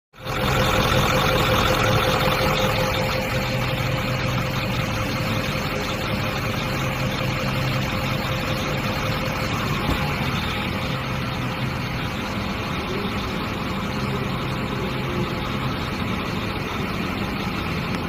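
Ford 6.4L Powerstroke twin-turbo V8 diesel idling steadily during an air-in-fuel diagnosis.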